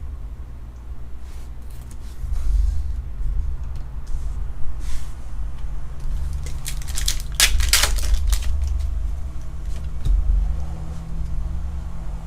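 A low rumble of handling noise, with short bursts of crinkling foil about five seconds in and again around eight seconds as a Pokémon booster pack is torn open.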